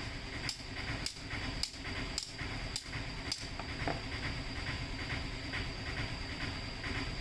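Six sharp, evenly spaced hammer-like strikes, about two a second, followed by lighter ticking, over a steady workshop hum with a faint high whine.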